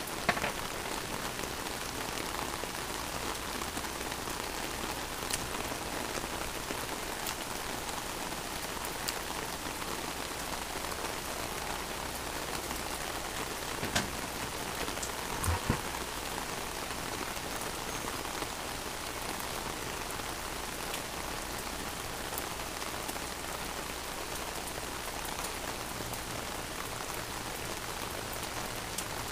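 Steady rain pattering on an umbrella overhead, with a couple of brief knocks around the middle.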